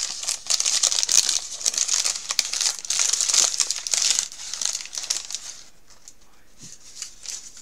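A tiny gift wrapper being crinkled and pulled off by hand as a miniature toy is unwrapped. The rustling is dense and continuous, then dies away about two thirds of the way through.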